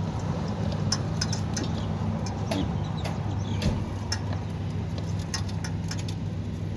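A steady low machine hum with scattered light clicks and clinks.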